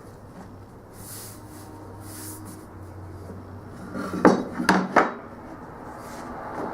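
Cherry boards being handled on a workbench: faint sliding and rubbing, then three sharp wooden knocks close together as the pieces are set down, over a steady low hum.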